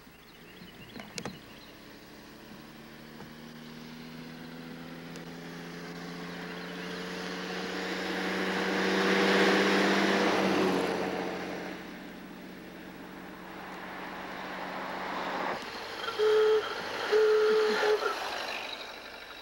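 An antique car's engine driving up and passing close by, its steady hum swelling to a peak about halfway and dropping slightly in pitch as it goes past. Near the end a car horn toots twice, in two short blasts.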